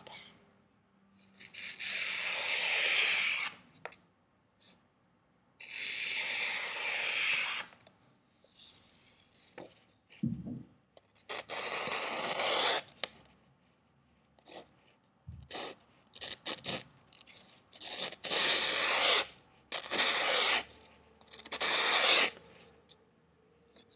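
A sharp knife blade slicing through a sheet of paper: about six long, hissing cuts a few seconds apart, with some shorter scratches between them. It is a paper-slicing sharpness test of a freshly sharpened L6 steel hunting knife.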